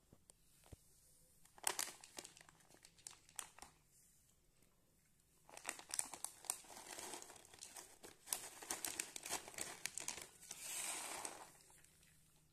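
Crinkling and crackling like plastic packaging being handled, in two spells: a short one about two seconds in, and a longer, denser one from about halfway that ends in a rustle near the end.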